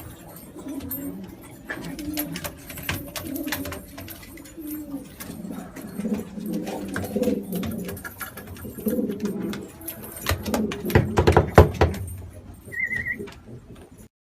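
Domestic pigeons cooing, low repeated phrases one after another, with a burst of rapid loud clattering near the end and a brief high chirp just after it.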